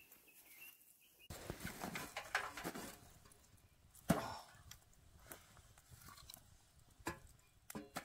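Wood fire crackling in a perforated metal fire pit, with sharp pops of burning wood throwing sparks, one about four seconds in and a couple near the end. The first second is near silent.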